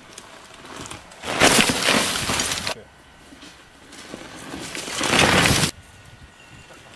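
Mountain bike on a dirt trail: tyre and trail noise swells twice as a rider comes close, each time cutting off suddenly.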